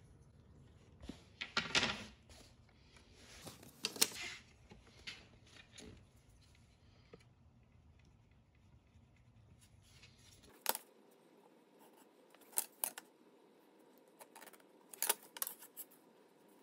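Pencil scratching marks onto a wooden board and a steel try square being shifted and set down: scattered short scrapes and light taps, with pauses between.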